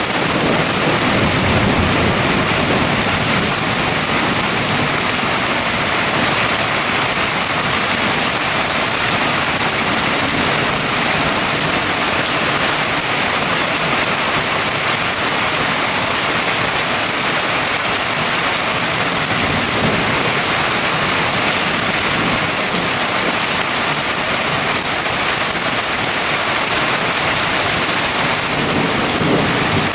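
Heavy thunderstorm rain falling steadily, an even hiss with no letup. Low rumbles of thunder swell under it in the first couple of seconds, again about two-thirds through, and near the end.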